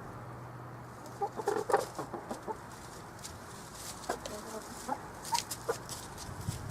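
Young point-of-lay hens clucking: a quick run of short clucks about a second in, then scattered single clucks a few seconds later.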